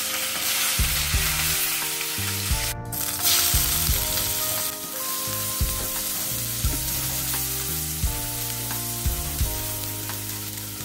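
Hot oil sizzling in a non-stick frying pan as whole climbing perch fry, then sliced onions sizzling as they are stirred with a silicone spatula, with a short break about three seconds in. Background music with a bass line plays underneath.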